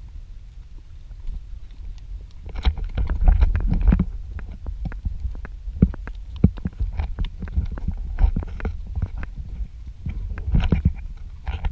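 Wind rumbling on the microphone of a camera carried on horseback, with irregular knocks and clicks from the ride as the horse walks, thickest a few seconds in and again near the end.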